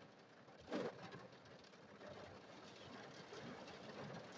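Heavy rain falling on a car, heard faintly from inside the cabin as an even hiss, with one brief low sound about three-quarters of a second in.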